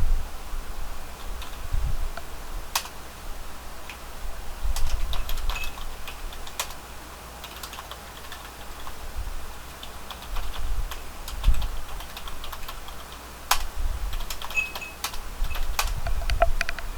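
Computer keyboard typing in irregular bursts of keystrokes with short pauses between, the keys giving sharp clicks along with low thuds.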